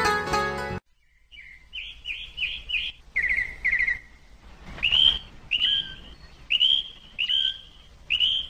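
A plucked-string tune cuts off abruptly just under a second in. Then small birds chirp and twitter: repeated short, curling chirps and quick runs of rapid notes.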